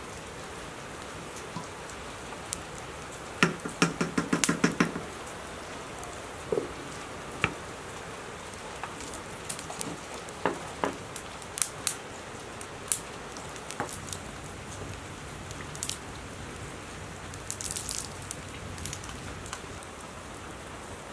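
Wood fire crackling, with irregular sharp pops over a steady hiss and a quick run of loud pops about three to five seconds in.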